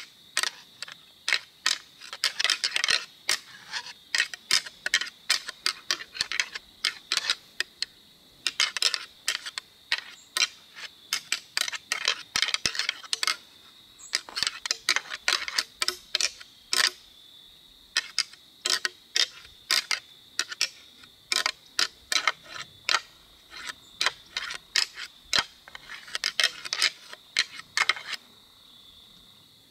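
A pair of whitetail deer antlers being rattled together in bursts of clacking and grinding as the tines are struck and twisted against each other, imitating two bucks fighting during the rut. The rattling stops about two seconds before the end.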